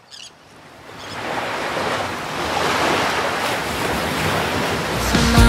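Ocean surf washing onto a beach, fading in about a second in and then holding steady, with a brief bird chirp at the very start. Music comes in loudly near the end.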